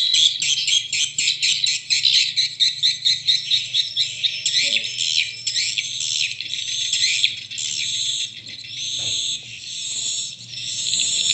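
Recorded swiftlet courtship calls played as a lure sound for swiftlet houses through a Piro MW-88 swiftlet sound player and its two horn tweeters. High, rapid chirps come at about five a second in the first half, then turn to longer twittering, with a faint low hum underneath.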